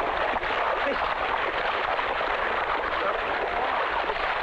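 Steady splashing and sloshing of water and mud as water buffalo and farmers wade through a flooded rice paddy, dragging wooden harrows, with brief voices here and there.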